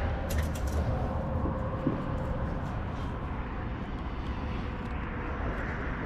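Steady low rumble of traffic, with a few light clicks about half a second in.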